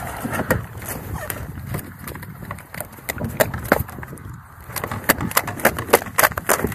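Handling noise as a shot duck is hauled out of the water and laid on a small boat's deck: a string of sharp knocks and rustles, coming faster and louder in the second half.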